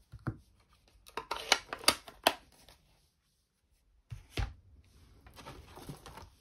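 Clear acrylic stamp block being handled on a paper-covered work mat. There is a knock, then a quick run of sharp plastic clicks, a low thump about four seconds in, and soft rubbing near the end.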